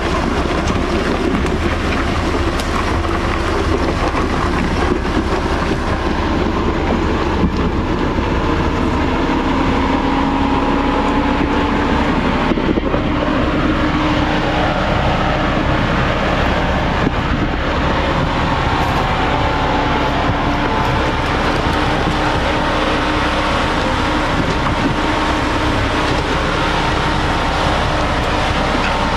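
Jeep Grand Cherokee Trailhawk's engine running steadily as it drives the trail, under heavy wind rumble on the microphone. Faint engine notes drift slowly up and down in pitch.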